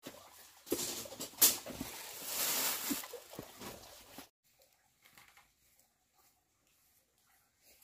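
Plastic bags crinkling and rustling as they are dropped and piled onto a wood hearth, with a sharp crackle about a second and a half in. It stops abruptly a little after four seconds, leaving only faint, scattered ticks.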